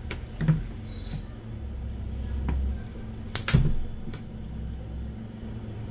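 A few sharp clicks and knocks from cake-decorating tools and containers being handled on a worktop, the loudest pair about three and a half seconds in, over a steady low hum.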